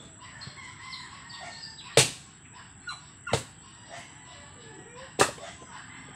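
Axe chopping into a log to split firewood: three sharp blows, about two, three and a half and five seconds in, with a lighter knock between the first two.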